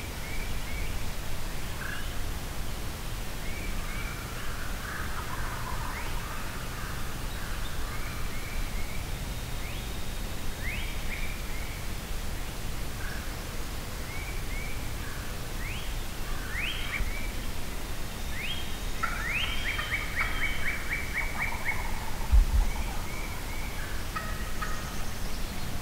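Wild turkey gobbling, in bursts about 5 seconds in and again near 20 seconds, among repeated chirps and whistled notes from songbirds.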